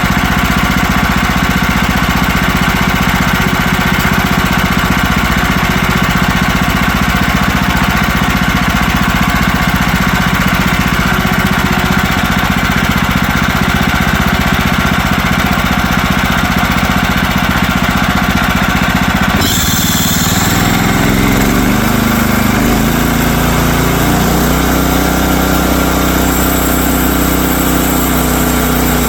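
Woodland Mills HM130Max sawmill's gas engine running steadily at high speed. About two-thirds of the way in the sound changes abruptly, and the engine's pitch falls over a few seconds before settling into a lower, steady idle.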